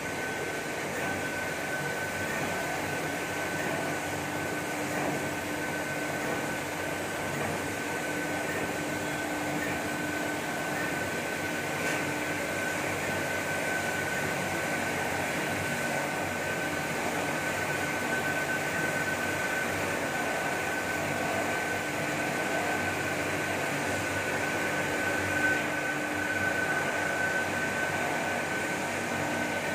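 Steady machinery hum with a constant high whine and a lower tone beneath it, from the motors of an industrial PVC film sheet-cutting machine running. There is one brief clack near the end.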